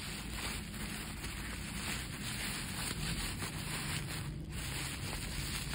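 Plastic bubble wrap crinkling and rustling as it is handled and pulled open, a dense run of small crackles with a short pause a little after four seconds in.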